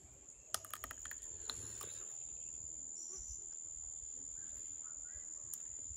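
A steady high-pitched insect trill, like a cricket's, runs throughout. A few sharp clicks about half a second to a second and a half in come from biting into a green umbu fruit.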